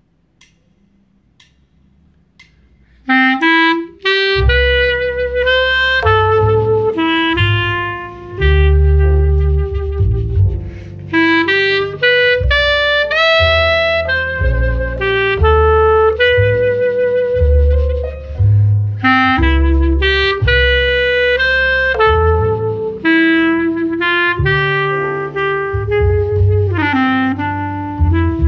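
Clarinet playing a flowing melody over a low bass accompaniment. The clarinet comes in about three seconds in, after a few faint ticks.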